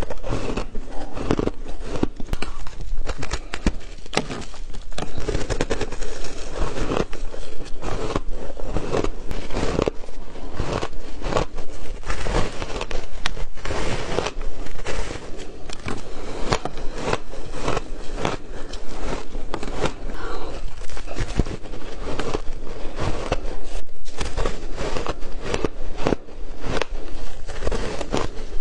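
Close-up crunching of packed shaved ice being bitten and chewed, a dense, continuous crackle of many sharp cracks.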